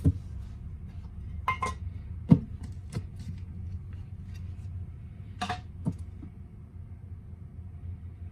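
Several short clicks and knocks from handling an APC UPS as it is switched on, the loudest about two seconds in, over a low steady hum.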